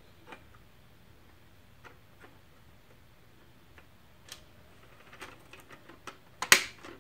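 Painted plastic faceplate being fitted onto a bare DVD drive: scattered light plastic clicks and taps, coming more often over the last couple of seconds, then one loud sharp snap near the end as it clips on.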